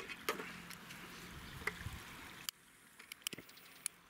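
Light clinks and knocks of an aluminium mess tin being set on a small solid-fuel pocket stove, over a steady faint hiss. After a sudden drop in level, a quick run of sharp clicks from a long gas lighter's igniter as it lights the fuel tablet.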